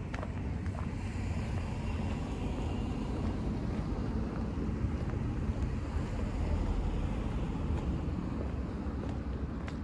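Steady low rumble of street traffic, swelling a little about six seconds in as a vehicle goes by.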